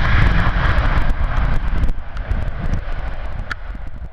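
Jet engine roar from a twin-engine business jet rolling along the runway, fading toward the end. Heavy wind buffeting on the microphone runs under it.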